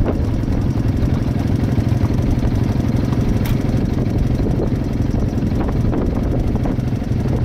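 Quad bike (ATV) engine idling steadily, with a single sharp click about three and a half seconds in.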